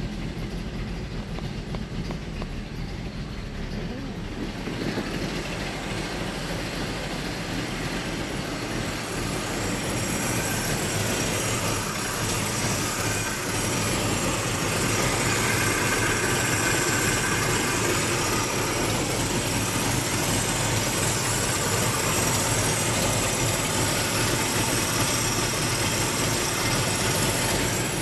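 1967 Ford Mustang's S-code 390 cubic-inch big-block V8 running just after a cold start. It grows louder in steps over the first fifteen seconds or so, then runs steadily.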